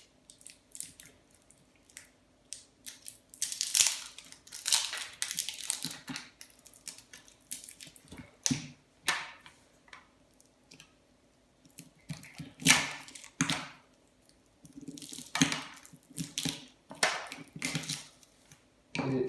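A small hand tool scraping, prying and clicking at the coil of a nebuliser's pump motor, with irregular scratches, knocks and clatters as the motor is handled on the table. The coil's winding turns out to be aluminium wire rather than copper.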